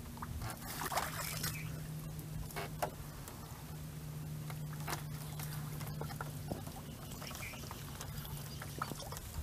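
Light rustling, patter and small knocks of a fine-mesh net and its bamboo frame being handled, with scattered clicks, over a steady low hum.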